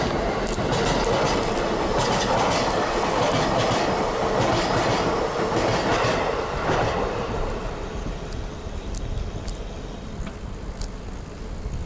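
A train passing close by, its wheels clacking over the rail joints, loud for the first several seconds and then fading away about seven seconds in.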